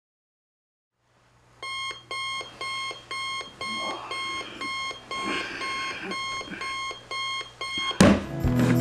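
Sony digital alarm clock beeping, about two short beeps a second over a faint low hum. Near the end the beeping stops with a sudden thump and loud music starts.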